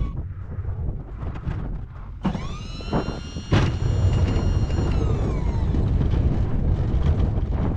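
Snow-plowing machine pushing a 16-foot Sno-Power plow: a steady low engine rumble. A few sharp clunks come about two to three and a half seconds in, and a high whine rises about two seconds in, holds for about three seconds and glides down and fades.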